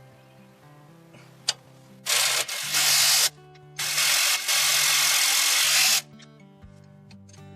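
A handheld power tool running in two bursts, a short one of about a second and then a longer one of about two seconds, over background acoustic guitar music.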